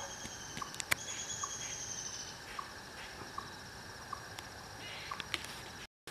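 Insects trilling steadily with a high, even buzz, over short soft chirps repeating about every half second. Two sharp clicks come about a second in, and the sound drops out for an instant near the end.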